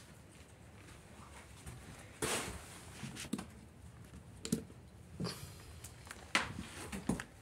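Hands handling small objects at close range: a brief rustle about two seconds in, then several light clicks and knocks.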